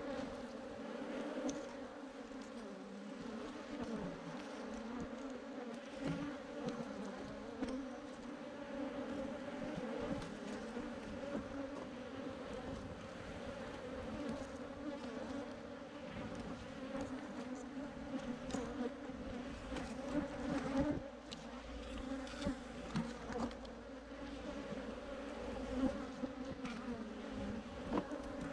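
A mass of Africanized honey bees buzzing, a steady low hum, with a few light knocks in the second half.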